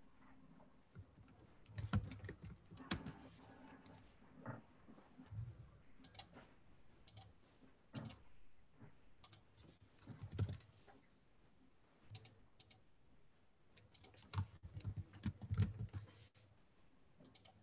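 Computer keyboard typing in irregular bursts of quick key clicks, with short pauses between the bursts.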